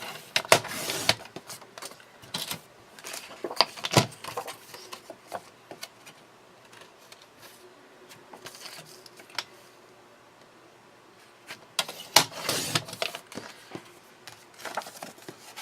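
Paper and small craft tools being handled on a table, heard as scattered clicks and short rustles in four clusters, with quieter gaps between them.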